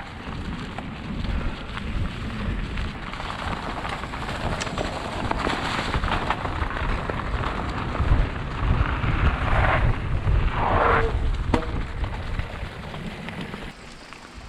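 Mountain bike riding a dirt trail: wind buffeting the microphone with a heavy low rumble, tyres rolling over the ground and the bike rattling with scattered sharp clicks.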